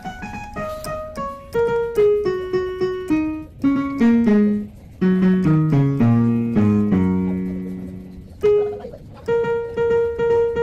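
Background piano music: single notes stepping down in a descending run to a long-held low note, then a higher note repeated several times near the end.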